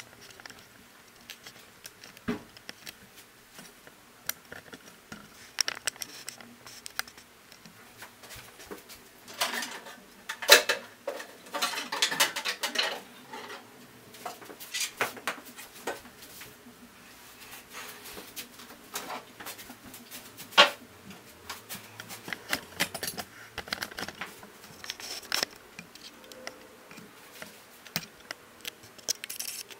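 Scattered clicks, taps and light rattles of plastic and metal parts being handled on an opened Brother PR620 embroidery machine as it is taken apart to reach its control board. A busier run of clatter comes about ten seconds in, with two sharper knocks, one about ten seconds in and one about twenty seconds in.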